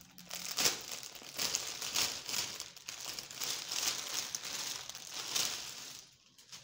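Clear plastic packaging bag crinkling as it is handled and opened. The crinkling stops about six seconds in.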